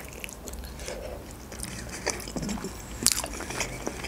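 Close-miked biting and chewing of a boiled Georgian khinkali dumpling: irregular soft mouth sounds and small clicks, with one sharper click about three seconds in.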